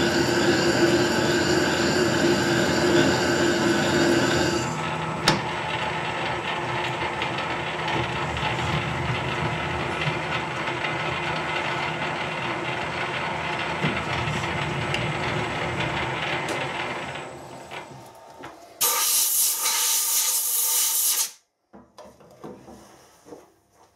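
Harrison lathe running under power on a spring cut of a screw thread, with a steady geared whine; after about five seconds a click and the whine gives way to a lower running sound that dies away as the lathe stops. Near the end a loud hiss lasts about two seconds.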